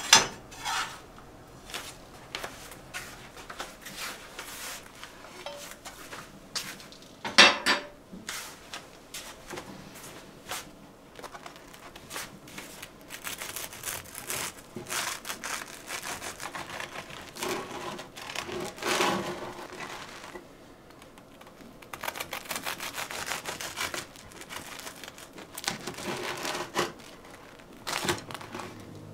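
Kitchen handling sounds: a utensil clicking against a frying pan at the start and a sharp knock about seven seconds in, then a knife sawing through a crisp toasted sandwich in repeated scraping strokes through most of the rest.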